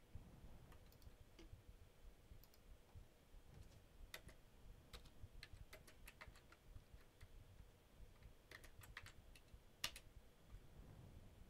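Faint computer keyboard typing and mouse clicks: scattered single clicks and short runs of keystrokes, the loudest a little before the end.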